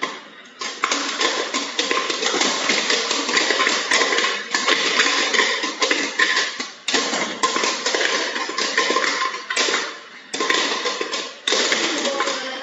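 A metal ladle clattering and scraping quickly against the inside of a metal pot, with a few short pauses.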